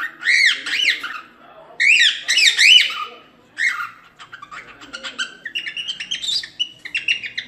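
Cockatiel whistling and chirping: two loud runs of quick swooping whistles, rising and falling in pitch, in the first three seconds, then a string of shorter, faster chirps.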